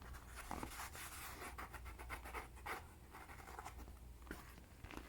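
Faint rustling and scratching as packaging and merchandise are handled, with a few small clicks.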